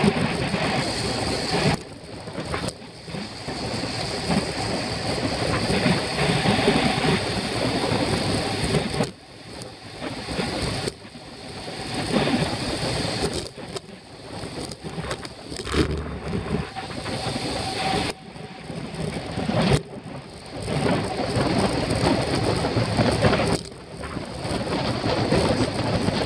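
Wind rushing over the microphone of a camera on a bicycle racing at speed in a pack. The rush is a dense, steady noise that drops away sharply several times before building again.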